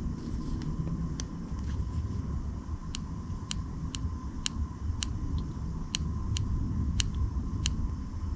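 A series of sharp, light clicks, about ten of them and many roughly half a second apart, over a steady low rumble and a faint steady hum.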